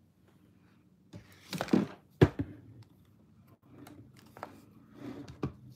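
Objects being handled close to the microphone: a brief rustle, then irregular clicks and knocks. The loudest is a sharp knock a little over two seconds in, with a few lighter ones near the end.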